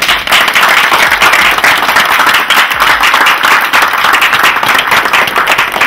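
A small group of people applauding: dense, steady hand-clapping that starts suddenly.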